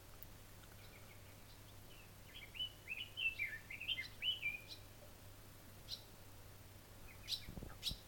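A songbird singing a fast phrase of rising and falling warbled notes lasting about two and a half seconds, followed by a few short, sharp high notes near the end. A low thump comes near the end.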